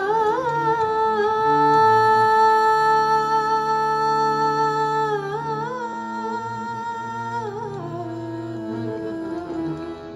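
A woman's voice sings the slow, unaccompanied-by-drums opening of a ghazal in long held notes with ornamental glides, over sustained harmonium notes. It softens over the second half.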